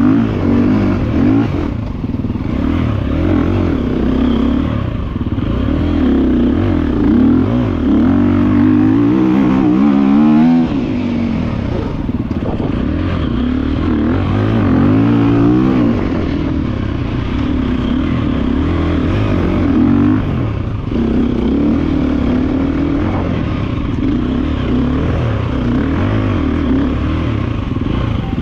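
2024 GasGas EC350F's single-cylinder four-stroke engine ridden hard, revving up and down with the throttle through the turns and straights, its pitch rising and falling again and again.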